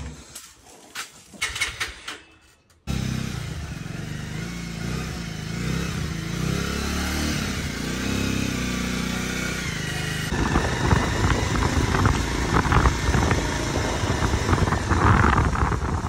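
A motor vehicle on the move, its engine running steadily after a few soft knocks in the first seconds. About ten seconds in the sound turns rougher, with a rattling rush over the engine.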